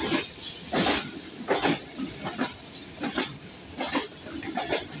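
Passenger train's wheels clattering over rail joints in a steady rhythm, a sharp clack a little more often than once a second, heard from inside the moving coach.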